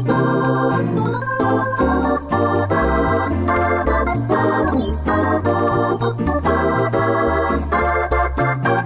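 Background music: sustained keyboard chords over a bass line that changes about twice a second, with a steady beat.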